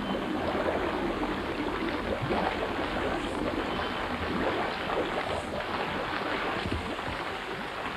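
Steady rushing water noise, from water around a car sunk underwater.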